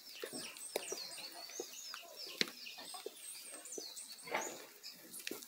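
Birds chirping: many short, high chirps, several falling in pitch, around a farmyard with chickens. Scattered soft footsteps on a dirt yard underneath.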